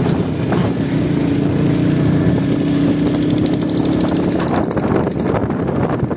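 A 70cc motorcycle engine running at a steady speed while being ridden, with a steady drone. Near the end the engine drone weakens and wind buffeting the microphone takes over.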